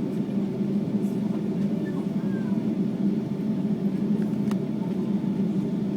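Steady low cabin rumble of a Boeing 757-200 taxiing with its engines at low power, heard from inside the passenger cabin.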